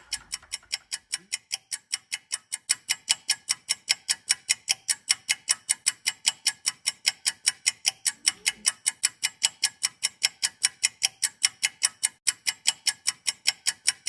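Steady, rapid clock-like ticking, about four to five ticks a second, sharp and even. It is loud against the surrounding speech.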